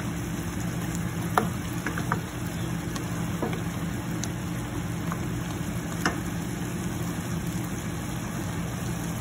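Shrimp sizzling and bubbling in sauce in a frying pan under a steady low hum. A spatula stirs them, with sharp clicks against the pan about a second and a half in and again about six seconds in.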